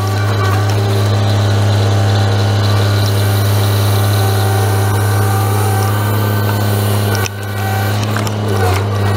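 Grapple truck's engine and hydraulic loader running under load, a steady hum as the knuckle-boom grapple lifts a bundle of brush and swings it over the truck body; the load eases briefly about seven seconds in, then picks up again.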